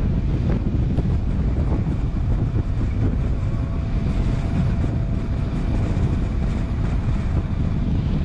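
Strong gusting wind buffeting the microphone in a steady low rumble, with a faint steady whine from about three seconds in until near the end.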